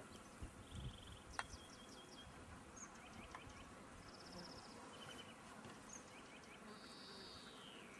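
Faint outdoor ambience with small birds chirping: short high trills scattered through, and a falling whistled note near the end. A single soft click about a second and a half in.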